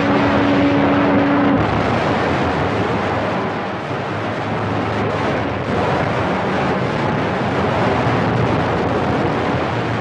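Cobra CB radio receiver hissing with loud static and band noise, with a steady heterodyne tone for about the first second and a half.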